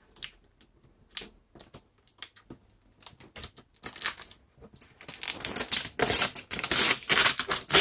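Packaging being peeled and handled by hand. Scattered light clicks and ticks, then from about five seconds in a few seconds of dense crackling rustle.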